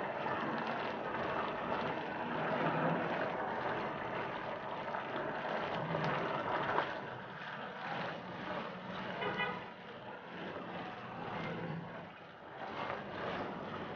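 Chicken gravy boiling and sizzling in a nonstick wok, a steady crackling hiss that eases off about halfway through, with a few light clicks and knocks.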